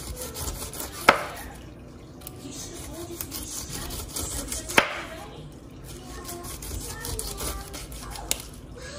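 Large kitchen knife sawing down through a pineapple's tough rind, a rough rasping scrape, with the blade knocking sharply on the wooden cutting board twice, about a second in and again near five seconds, and more lightly near the end.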